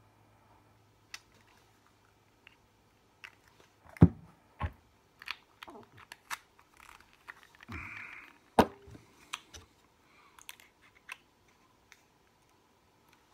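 Handling clicks and knocks from an e-juice dropper bottle and a vape mod with its atomizer: scattered small clicks, two sharp knocks about four seconds in, a brief scrape near eight seconds, and another sharp knock just after it.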